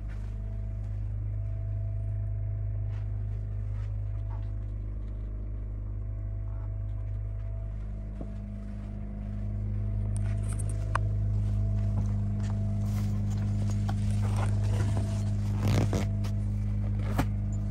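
Steady low machine hum inside a motorhome, with a few level tones. From about ten seconds in come scrapes, rustles and small clicks of a gloved hand rubbing a leather seat.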